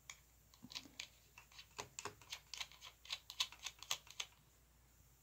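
Quiet, irregular small metal clicks and taps, a couple of dozen of them, stopping about four seconds in, as a cable lug, washer and nut are fitted by hand onto a deep-cycle battery's threaded terminal post.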